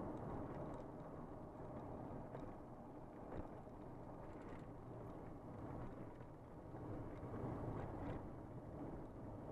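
Steady road and engine noise of a vehicle driving along, with a few faint light knocks.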